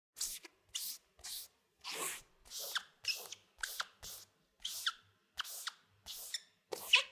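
Rubber squeegee wiping a wall in short, quick strokes, about two a second, each a wet swish with a squeak of the blade on the surface; the loudest stroke comes near the end.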